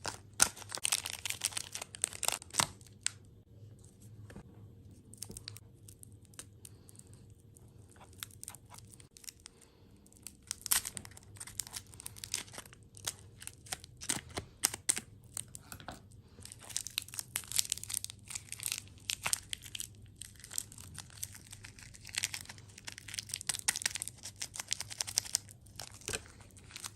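Close-up crinkling, crackling and tearing, like packaging being handled and torn open, in irregular bursts of sharp crackles with quieter pauses between.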